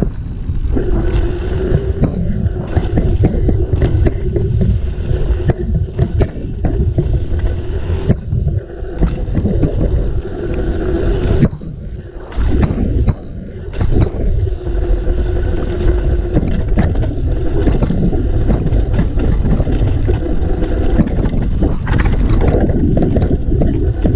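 Yeti SB 4.5 mountain bike descending a dirt trail at speed: a constant low wind rumble on the camera microphone, with tyre noise and frequent knocks and rattles of the bike over bumps. It eases for a moment about halfway through, then picks up again.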